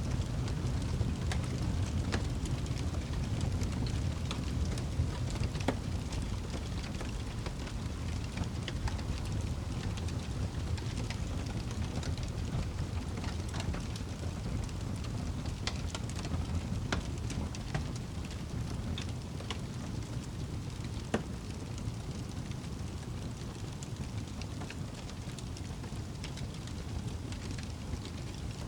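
Wood fire burning in a fireplace: scattered sharp crackles and pops over a steady low rumble.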